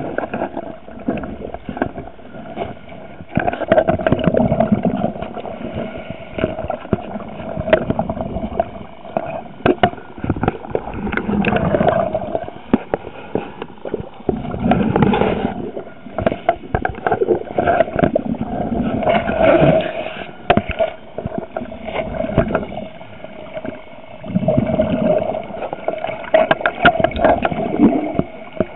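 Scuba diver breathing through a regulator underwater, the exhaled bubbles gurgling in swells every few seconds. Short knocks and scrapes come from the camera's underwater housing being handled, over a steady low hum.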